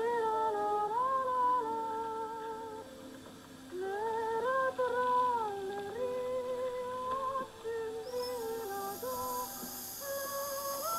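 A voice humming a slow melody in long, slightly wavering held notes, with a short break about three seconds in.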